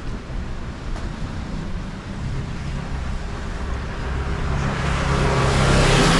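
Street traffic: a car's engine hum sets in about two seconds in, and tyre and road noise swells toward the end as a vehicle draws close.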